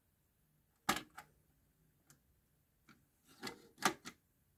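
Mechanical clicks of a Pyle PT-659DU cassette deck being operated: a sharp click about a second in as the stop/eject key is pressed, a few faint ticks, then a cluster of clicks and a short rub near the end as the cassette door is handled.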